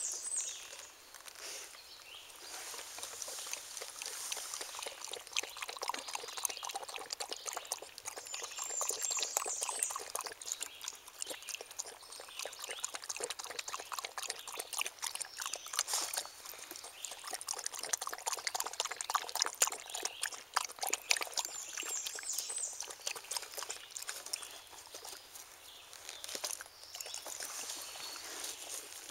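Beagle puppy lapping water from a small stream in several bouts of quick wet laps, over the faint trickle of the stream.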